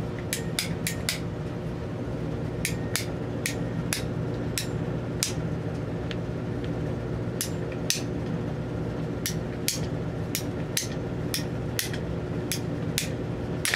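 Ratcheting PVC pipe cutter clicking again and again as it is squeezed stroke by stroke through a PVC pipe, in irregular runs of sharp clicks about two a second with short pauses. A steady low hum lies underneath.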